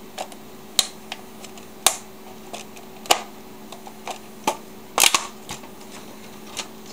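Plastic snap-fit clips of a cordless phone base station's housing clicking and cracking as a flat screwdriver pries the case apart. The sharp clicks come about once a second, with the loudest cluster about five seconds in, over a faint steady hum.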